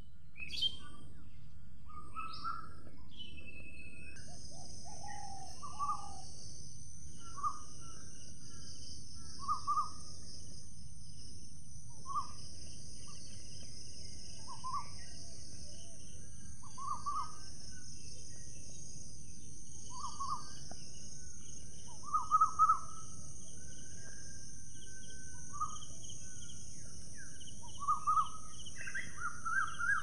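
Short bird calls repeated every second or two, loudest about two-thirds through, over a steady high-pitched buzz and a low rumbling background.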